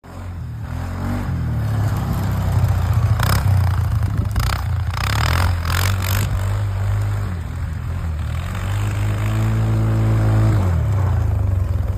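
A quad (ATV) engine running and revving up and down, with several short scraping bursts about three to six seconds in.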